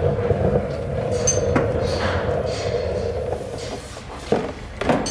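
A steady droning hum with a low rumble runs throughout. A few light clicks and knocks come from a plastic wheel-well liner being pushed into the wheel arch, once about a second and a half in and twice near the end.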